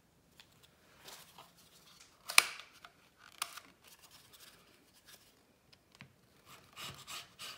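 Acrylic quilting ruler and cotton fabric being shifted and pressed on a cutting mat, with scattered rustles and taps and one sharp click about two and a half seconds in. Near the end a rotary cutter with a fresh blade starts rolling through the cotton along the ruler's edge.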